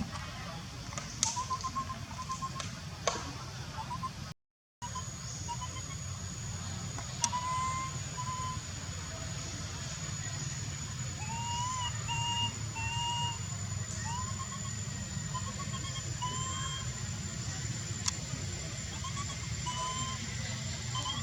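Baby monkey giving short, rising-and-falling crying calls, repeated again and again in little runs, over a steady high-pitched whine and a low rumble.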